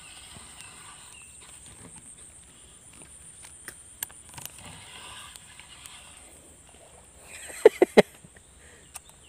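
Faint handling and movement noise from an angler carrying a spinning rod through wet grass: soft rustles and small scattered clicks over a steady high-pitched hiss. Near the end come three sharp clicks in quick succession, the loudest sounds here.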